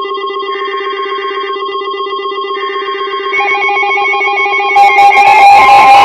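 NOAA Weather Radio alert coming in on weather-alert receivers. Two short buzzy bursts of SAME header data play over the receivers' pulsing alarm tones. About three seconds in, further alarm tones join, and near the end they grow louder, as the receivers sound for a new warning.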